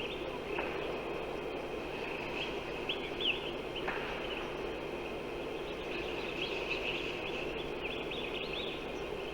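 Small birds chirping over and over in short, quick high calls, over a steady rushing background noise.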